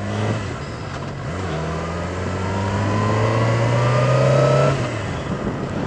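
Motorcycle engine under acceleration, its pitch and loudness rising steadily for a few seconds before dropping off suddenly near five seconds in, with wind rush from riding.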